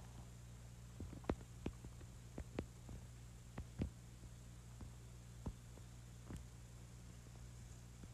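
Faint steady low hum, with a scattering of soft short clicks and ticks.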